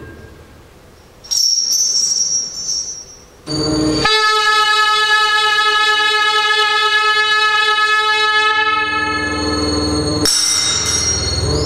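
Free-improvised saxophone with electronics: after a quiet opening and a thin high whistling tone, a long held note that sounds several pitches at once like a horn chord sustains steadily for about six seconds, then breaks into a rougher, noisier sound near the end.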